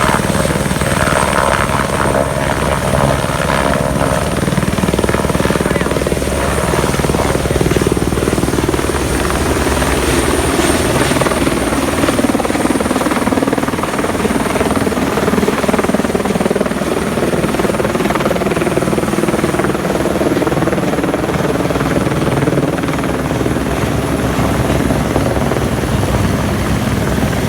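Helicopter rotor and engine running close by, a loud, steady, rapid beating chop.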